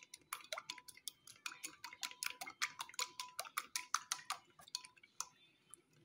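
Eggs being beaten in a ceramic bowl: a utensil taps rapidly against the bowl, several clicks a second, some with a short ring from the bowl, pausing briefly near the end.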